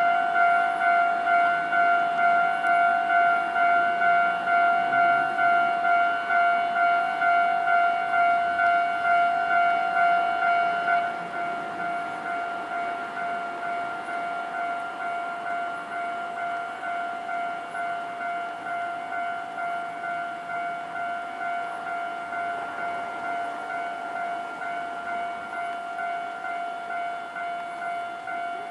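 Japanese railway level-crossing alarm bell ringing in a steady, even rhythm of repeated electronic tones, warning of an approaching train. About eleven seconds in it becomes noticeably quieter and thinner, then keeps ringing.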